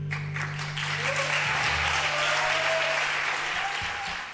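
Audience applauding right as the song ends, with a few short cheers over the clapping and a low note from the band still ringing underneath for the first few seconds. The applause fades out near the end.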